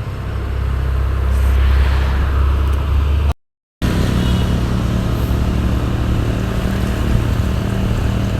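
Heavy diesel truck engine running with a deep rumble that swells over the first couple of seconds, then carries on steadily. The sound cuts out completely for about half a second a little past a third of the way in.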